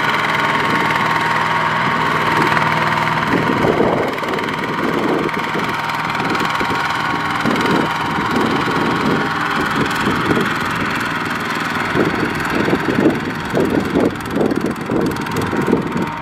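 Kubota RT120 hand tractor's single-cylinder diesel engine running steadily while pulling a trailer loaded with rice sacks through a muddy field. Over the last few seconds the sound turns choppy and uneven.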